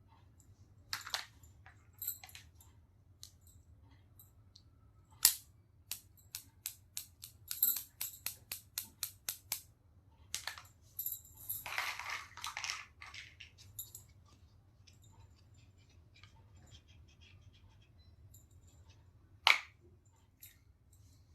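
Small hard plastic toy pieces being handled and set down: sharp separate clicks and taps, a quick run of about a dozen clicks, and a couple of seconds of crinkly rustling about halfway through.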